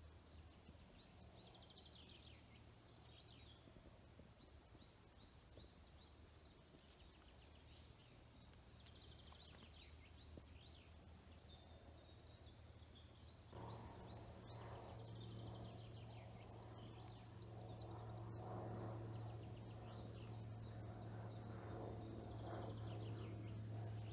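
Songbirds singing, with repeated short phrases of quick descending chirps, over faint outdoor quiet. About halfway through, a low steady engine hum comes in and slowly grows louder until it is the loudest sound.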